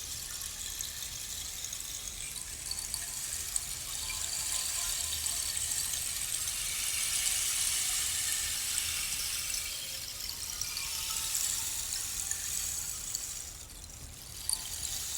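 Handmade eucalyptus-wood rainstick turned over, its fill trickling down inside in a continuous patter of tiny clicks like falling rain. It swells to its fullest about halfway, thins out near the end, then a fresh pour begins.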